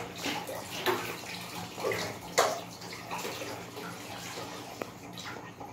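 Pot of water with rice, peas and masala at a rolling boil, bubbling with irregular pops.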